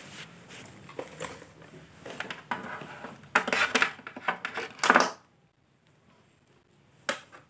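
Clicks, rattles and short scraping sounds, then near silence from about five seconds in, with one more click near the end.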